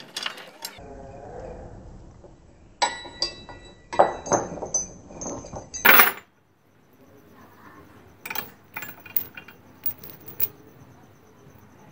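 Rusty chain rattling and clinking against the bench vise as it is handled, in irregular metallic clinks, some ringing briefly. The clinks are loudest in the middle, break off suddenly about halfway, and go on fainter afterwards.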